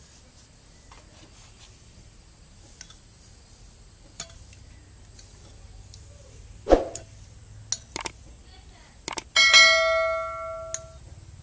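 Steel serving spoon clinking against stainless-steel pot and bowls as curry is served, with a few scattered knocks. Near the end a steel dish is struck and rings like a bell, fading over about a second.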